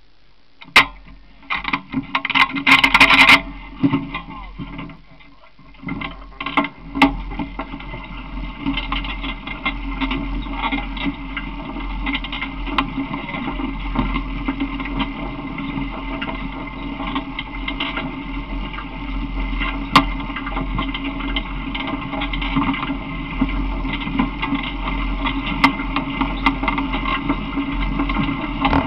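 Knocks and clicks in the first few seconds, then from about six seconds in a small vehicle's engine running steadily as the open vehicle moves, with rattles and knocks throughout.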